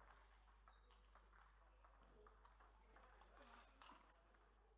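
Faint, irregular clicks of table tennis balls striking paddles and tables, with faint distant voices and short squeaks.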